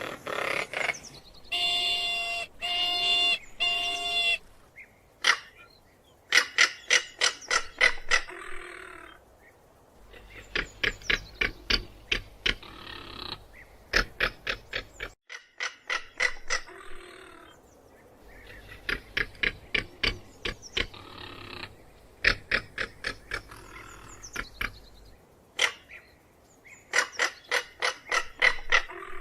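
Crested caracara giving its dry rattling call: repeated bouts of rapid, harsh clicking notes, each bout lasting a second or two. Three short, higher-pitched calls come near the start.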